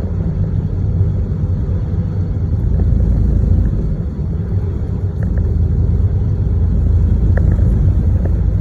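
Steady low rumble of a car's engine and tyres on the road, heard from inside the cabin while driving. It grows louder about three seconds in.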